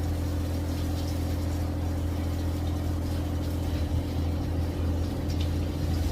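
Steady low mechanical drone with a few fixed tones, holding even throughout, like an idling engine or a running pump motor.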